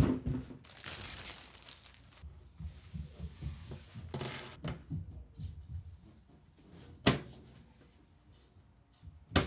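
A PC case side panel being handled and fitted: rustling and scraping, a few low knocks, then two sharp clicks near the end as it seats.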